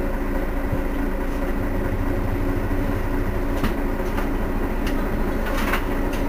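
Mercedes-Benz Citaro city bus engine idling steadily with a constant low hum, heard from behind the bus. A few short clicks come over it in the second half.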